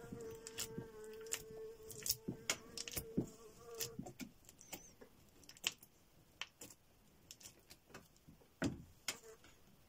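Scratching and clicking of an uncapping fork scraping wax cappings off a capped honey frame. A flying insect buzzes steadily close by for about the first four seconds, and there is a louder knock near the end.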